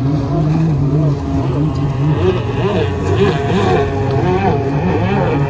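An engine running, its pitch rising and falling over and over.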